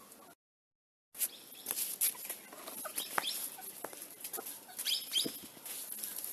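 Chickens clucking in short chirpy calls, mixed with scattered sharp knocks. The sound cuts out completely for under a second near the start.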